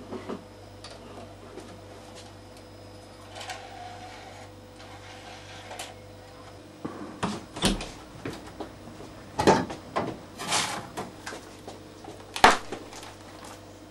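Knocks and clatter of things being handled at an open upright freezer: a frozen CD-ROM drive and a frozen food box being taken out. The first half is quieter, with a steady low hum and a few small clicks. The knocks come thick in the second half, the loudest about nine and a half and twelve and a half seconds in.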